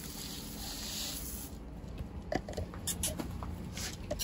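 Rustling and scattered light clicks in the wood-shaving litter of a chicken coop, as chickens scratch and move about on it.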